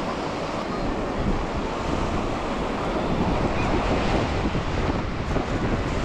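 Ocean surf breaking and washing up the beach in a steady roar, with wind rumbling on the microphone.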